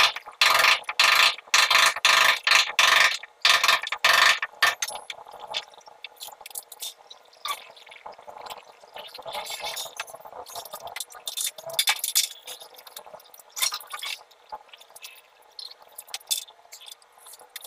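Hand work on PP-R plastic water-pipe fittings: a run of loud, evenly repeated strokes, about two a second, that stops about four and a half seconds in, followed by scattered light clicks and knocks as the pipe and fittings are handled.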